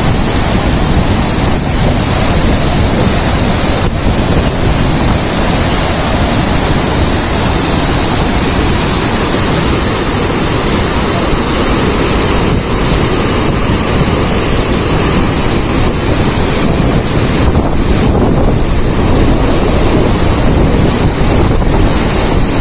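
Shivanasamudra waterfall in flood: heavy, muddy water pouring and crashing over rock ledges in a loud, steady rushing roar.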